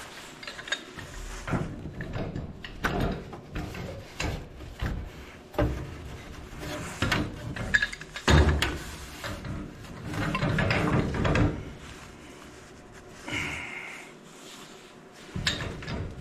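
Wrenches tightening threaded gas pipe into a fitting: irregular metal clicks, knocks and scraping as the pipe is cranked around, with a heavier knock about eight seconds in.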